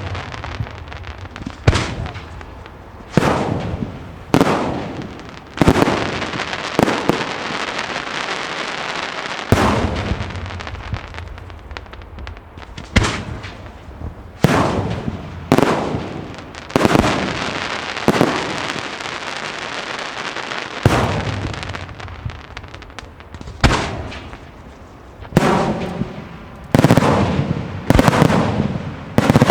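Pirotecnica Pellicani aerial firework shells bursting one after another, a loud bang every second or two, each followed by a fading echo, with crackling between the bangs.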